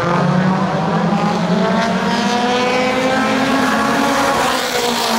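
A pack of stock cars racing on a paved oval, several engines running hard together, their pitch climbing gradually and easing off near the end as the cars pass.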